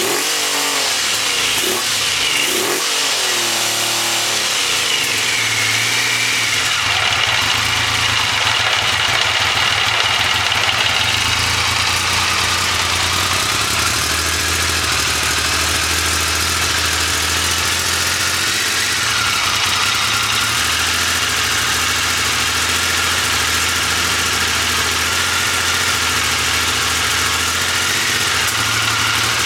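1999 Triumph Legend's three-cylinder engine running on its first start after restoration: blipped a few times in the first four seconds, then settling into a steady idle.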